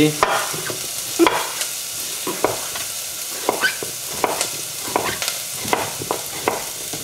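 Chef's knife cutting butternut squash into cubes on a bamboo cutting board, with irregular sharp knocks about two a second, the strongest about a second in. Under it, the steady sizzle of shallots frying gently in olive oil in a saucepan.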